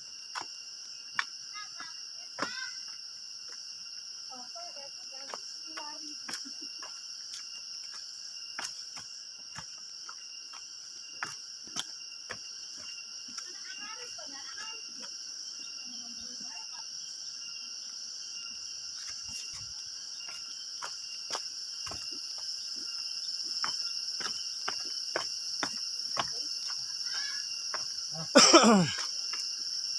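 Steady high-pitched insect chorus with scattered sharp clicks and faint voices. Near the end comes one loud cry that falls in pitch.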